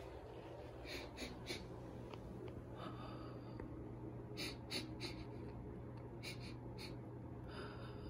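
A person sniffing and taking short sharp breaths, in three quick clusters of two or three, over a low steady hum.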